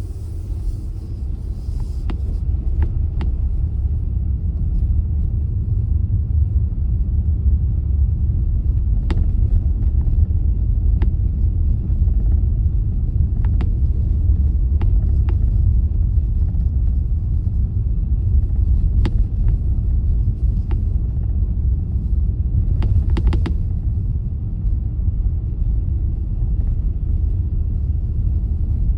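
Steady low rumble of a car driving on the road, with scattered brief faint ticks and clicks, a short cluster of them about three-quarters of the way through.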